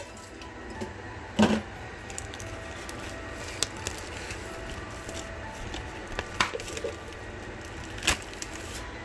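A clear plastic food tray and its cling wrap being handled: a few scattered sharp clicks and knocks, the loudest about a second and a half in, over a faint steady background hum.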